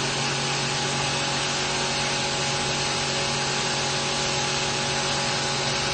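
A motor running steadily: an even hiss over a low, unchanging hum.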